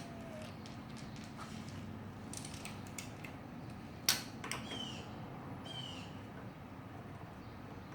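A few light clicks, then one sharp metallic clink about four seconds in and a smaller one just after, from the lawnmower's carburetor and fuel-line parts being handled during reassembly. Birds chirp twice in the background.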